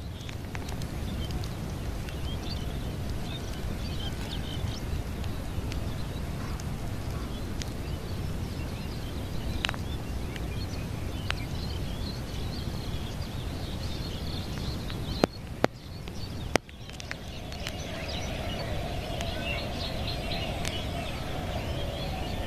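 Steady low rumble with small birds chirping throughout. Three sharp clicks come about fifteen to sixteen and a half seconds in, and after them a steady mid-pitched hum joins.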